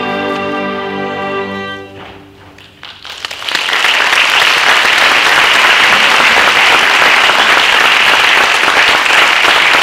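A student string orchestra holds its final chord of violins and cellos, which stops about two seconds in and briefly rings off. About a second later the audience breaks into applause that rises quickly and stays loud and steady.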